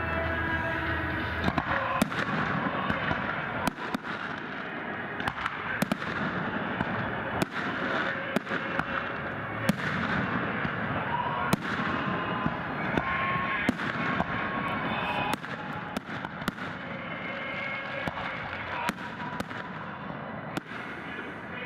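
Fireworks display: aerial shells bursting in a rapid, irregular series of sharp bangs over a continuous crackling hiss.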